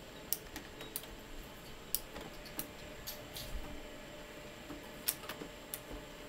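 Opened Samsung CLP-315W colour laser printer starting up: scattered sharp mechanical clicks at irregular intervals over a faint steady hum.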